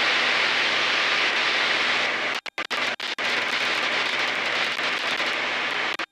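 Steady cockpit drone of a light aerobatic plane's piston engine and rushing air, picked up through the intercom. The sound cuts out briefly several times two and a half to three seconds in, then stops abruptly near the end.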